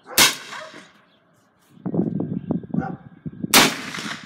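Two shots from a New England Firearms Handi Rifle, a single-shot break-action rifle in .357 Magnum: one just after the start and one about three seconds later, each a sharp crack with a short ringing tail.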